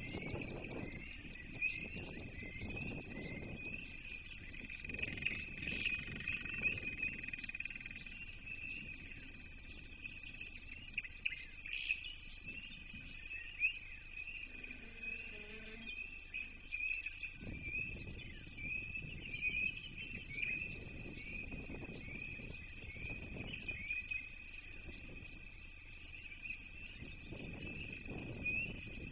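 Steady chorus of insects: continuous high trilling with scattered short chirps over it, and a low rumble that comes and goes.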